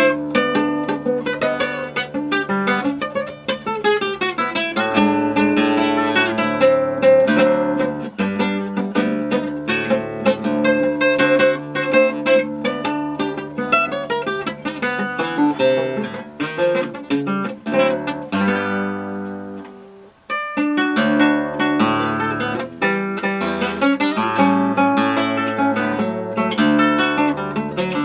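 Acoustic guitar playing a choro: a quick plucked melody over a moving bass line. About two-thirds of the way through, a held note rings and dies away almost to silence, then the playing resumes.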